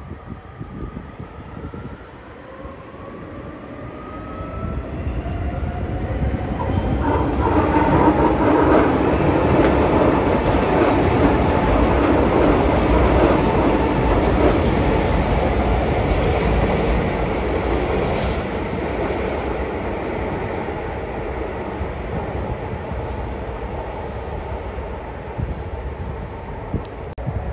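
Barcelona Metro Line 1 series 6000 train passing close by, with wheels clattering over the track and a motor whine that rises in pitch as it starts off. The sound builds over about eight seconds, peaks, then slowly fades.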